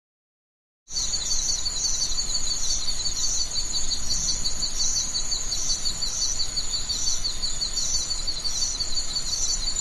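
Insects chirping in a steady chorus: two high, rapidly pulsing trills layered together, starting about a second in.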